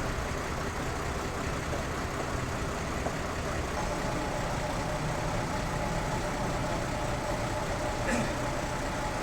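Sawmill machinery running steadily with a low, even engine-like drone; a faint steady whine joins it about four seconds in.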